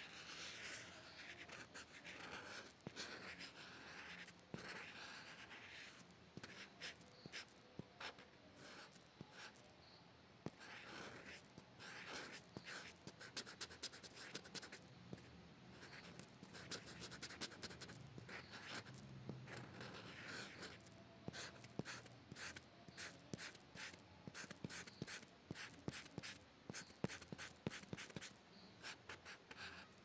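Faint scratching of a pencil tip drawing across textured paper: longer smooth strokes at first, then a quick run of short strokes in the second half.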